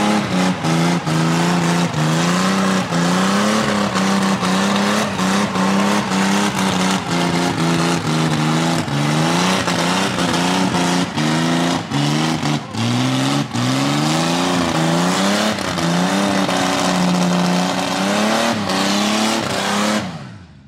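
A hot rod doing a burnout: its engine is held at high revs, the pitch dipping and climbing again about once a second, over the hiss of the spinning rear tyres, with frequent sharp cracks. The sound fades out near the end.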